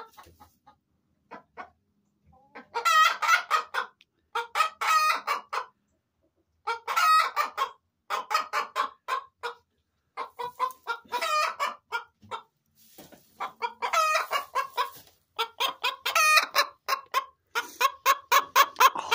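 Appenzeller Spitzhauben hen's egg song after laying an egg: runs of quick clucks, each ending in a longer drawn-out squawk, repeating about every two seconds.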